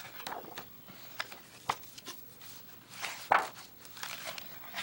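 Pages of a thick art book being flipped through by hand in a search: several quick papery swishes and rustles, the loudest a little past three seconds in.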